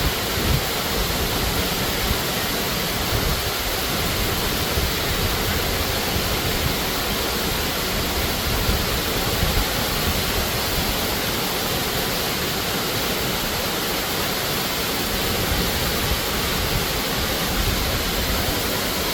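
Waterfall pouring steadily: a constant, even rush of falling water with a low rumble underneath.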